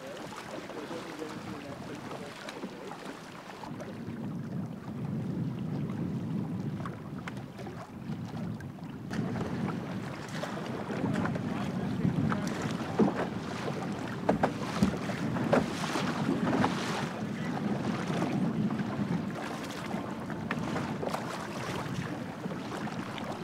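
Choppy lake water slapping against the hull of a canoe as it is paddled along, with wind on the microphone. Sharp slaps and splashes come more often after about nine seconds.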